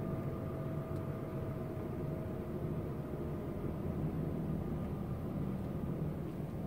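Semi-truck's diesel engine running at low speed under light load, heard from inside the cab as a steady low rumble with a faint steady whine above it.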